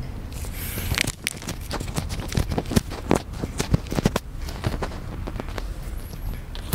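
Thin plastic packaging around a bread-shaped squishy toy crinkling as it is handled, in a dense run of sharp, irregular crackles that starts about a second in.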